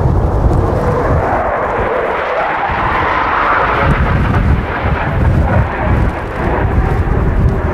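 F/A-18D Hornet's twin General Electric F404 turbofans, loud jet noise with a heavy low rumble underneath. A higher rushing sound swells to a peak about three and a half seconds in, then eases as the fighter turns away.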